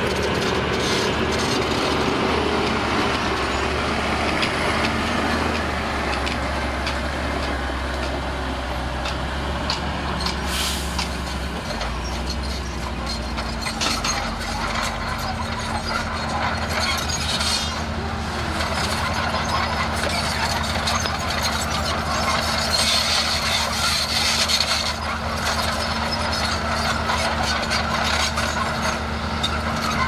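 Komatsu D31A crawler bulldozer's diesel engine running steadily as the machine pushes soil, with clanks and rattles throughout and a short hiss about ten seconds in.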